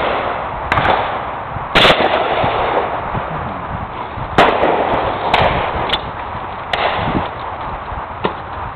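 Shotgun shots at clay targets: about seven sharp cracks of varying loudness, the loudest about two seconds in and about four and a half seconds in, with fainter ones between and near the end.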